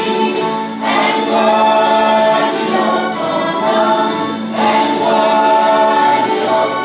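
A small mixed choir of young men and women singing together, in phrases of long held notes with short breaks between them.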